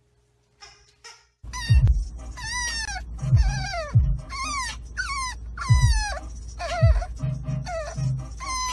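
French bulldog puppy whining in a series of high, falling cries, about one a second, starting about a second and a half in, over a low steady rumble.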